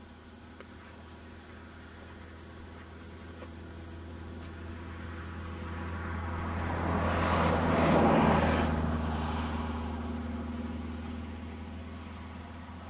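A vehicle passing by: a rush of noise that slowly swells to its loudest about eight seconds in, then fades away, over a steady low hum.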